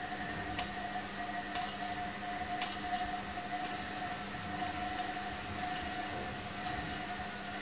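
Hoover A3308 Computer Control 1100 washing machine turning its drum in a short interim spin of the final spin sequence, the stage where the machine checks whether the load is balanced. The motor gives a steady whine, and something in the load clinks against the drum about once a second.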